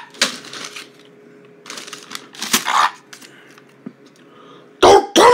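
Scattered rustles and sharp clicks of objects being handled by hand, then a person's voice near the end.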